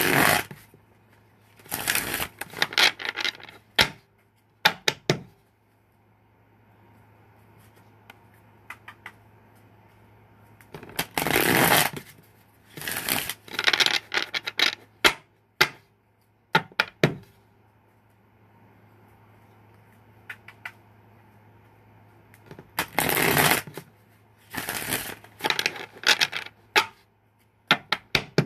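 A deck of tarot cards shuffled by hand in several short bouts of rustling, with pauses between them broken by scattered clicks and taps of the cards. A faint steady low hum runs underneath.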